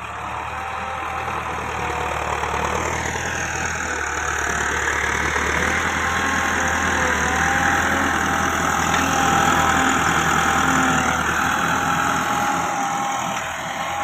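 Massey Ferguson 385 tractor's four-cylinder diesel engine running steadily while the tractor blades soil across the field. It grows louder as the tractor comes near, peaks about two-thirds of the way through, then eases slightly.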